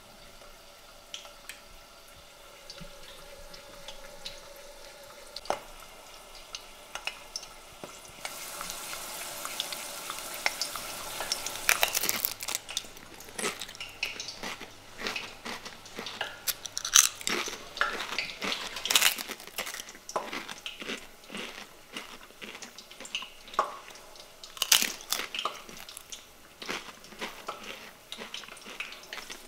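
Homemade potato chips being bitten and chewed: loud, irregular crisp crunches through most of the second half. Before the crunching there is a few seconds of steady hiss of potato slices frying in oil.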